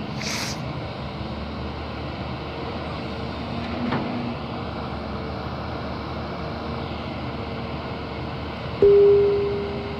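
Volvo EC210 long-reach excavator's diesel engine running steadily as the machine digs. About nine seconds in, a sudden loud tone fades away over about a second.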